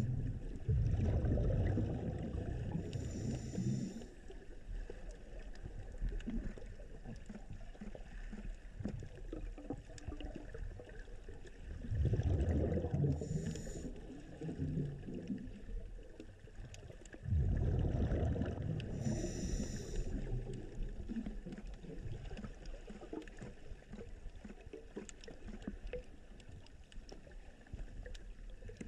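Underwater water noise picked up through a camera housing: a steady low rushing, swelling into louder rushes of water about a second in, at about twelve seconds and at about seventeen seconds, each lasting a few seconds, with brief high hisses among them.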